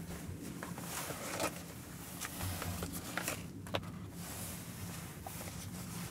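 Faint rustling of clothing and gear with a few small clicks and knocks, as a hunter settles a rifle into position, over a steady low hum.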